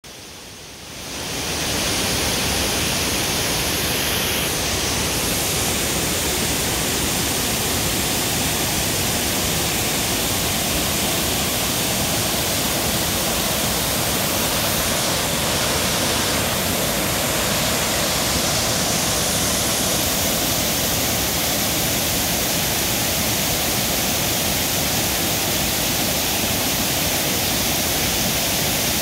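Whitewater of a rocky mountain creek rushing over rapids at the top of a 47-foot waterfall: a loud, steady rush of water that fades in over the first second or two.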